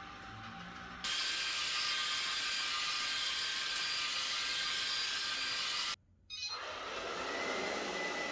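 ILIFE V5s Pro robot vacuum-mop running while it mops the floor: a steady mechanical whir with faint steady tones. It jumps louder about a second in, cuts out for a moment near six seconds and resumes.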